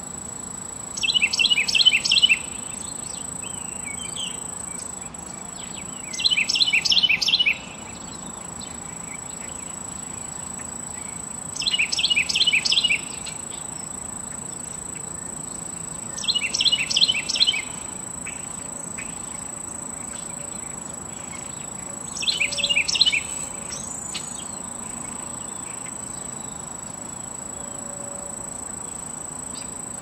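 Carolina wren singing: five short bursts of rapidly repeated ringing phrases, each about a second long, coming roughly every five seconds. A steady high-pitched whine runs underneath throughout.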